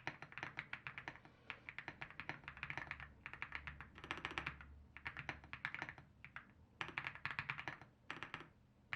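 Typing on a Womier SK75 aluminium-cased mechanical keyboard: quick runs of keystroke clicks in bursts, with brief pauses between runs.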